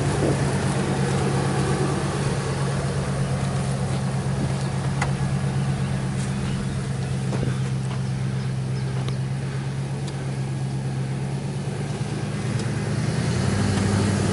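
Lifted Dodge Ram 1500's engine running at low, steady revs through its Borla S-Type cat-back exhaust while the truck crawls slowly off-road, with a few faint ticks; the revs rise slightly near the end.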